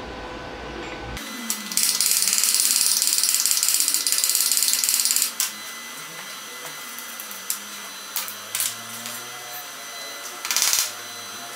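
Stick-welding arc crackling for about three and a half seconds as a nickel-iron electrode lays a tack weld on cast iron. A few sharp clicks follow, then a second, shorter burst of arc near the end.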